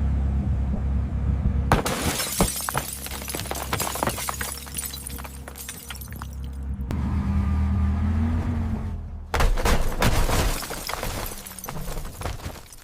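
Car crash sound effects: a low engine rumble, then a sudden crash with glass shattering and debris clattering for several seconds. The rumble returns, and a second crash with more shattering comes about two-thirds of the way through, its debris fading out.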